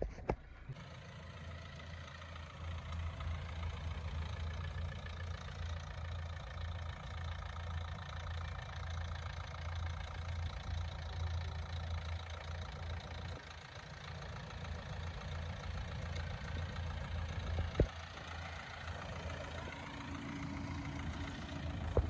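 Ford Fiesta sedan's engine idling steadily, with one sharp knock near the end.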